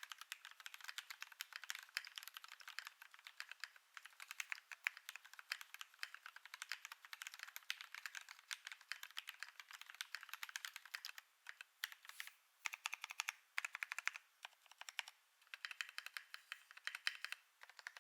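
KBD8X mechanical keyboard with lubed Gateron Milky Black linear switches on 70 g springs, an FR4 plate and MT3 keycaps, typed on in a fast, continuous stream of key clacks. From about eleven seconds in, the typing comes in short bursts with brief pauses between them.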